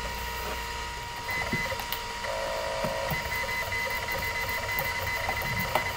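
A steady machine-like hum with constant whining tones over a hiss, dotted with faint ticks and clicks.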